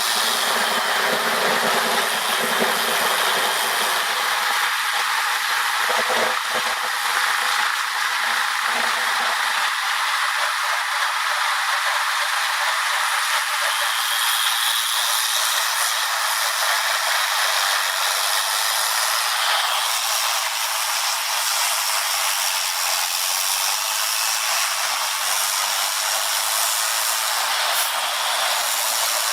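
Heavy wood-processing machinery running with a steady, loud mechanical rattling noise.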